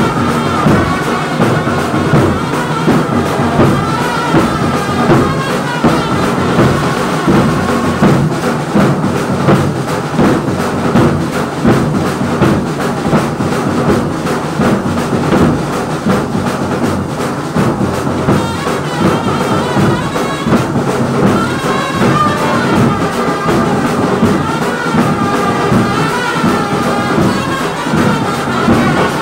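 Live brass band playing: trumpets and trombones carry the tune over a steady beat of a large bass drum and other drums. The horns drop back for a drum-heavy stretch in the middle.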